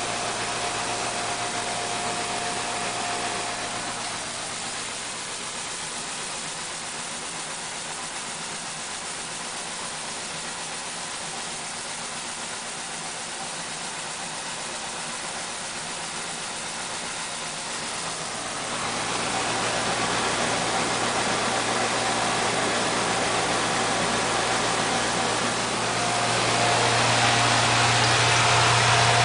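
Coin-operated rice milling machine running with a steady mechanical noise as rice drains from the intake hopper into the mill. The noise grows louder about two-thirds of the way through and again near the end, when a steady low hum comes in.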